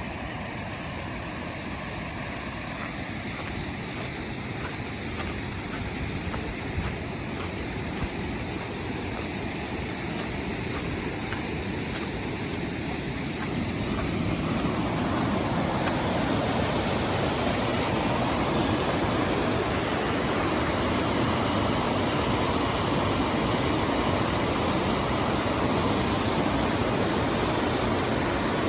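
River water rushing over rocks, a steady wash that grows louder about halfway through and then holds.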